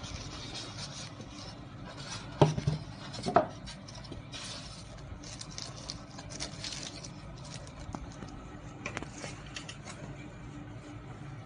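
Small hard objects being handled: two sharp knocks about a second apart a couple of seconds in, then light pattering and scattered small clicks.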